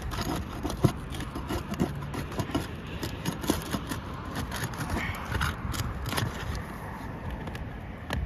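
Asphalt roof shingles being gently pried loose from their seal strips: scattered small crackles, clicks and scrapes over a low steady rumble.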